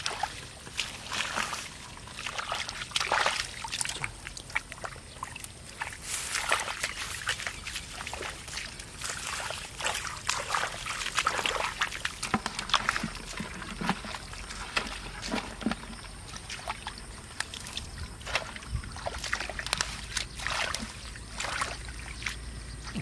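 Bare hands squelching and sloshing through mud and shallow muddy water, with irregular splashes and wet slaps as the mud is dug through.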